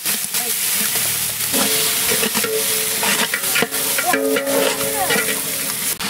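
Mutton sizzling in hot oil and masala in a large cooking pot, stirred with a metal ladle that knocks against the pot many times.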